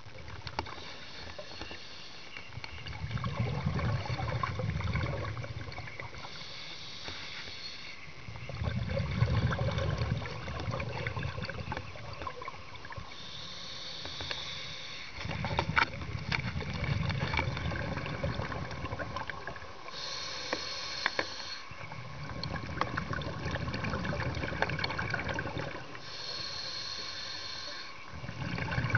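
Scuba diver breathing through a regulator underwater: a short hissing inhale followed by a longer low rumble of exhaled bubbles, repeating about four times, roughly one breath every six to seven seconds.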